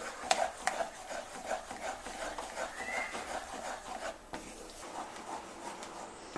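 Wooden spatula stirring and scraping thickening mango pulp around a kadai, an irregular rubbing scrape with a few light knocks against the pan near the start.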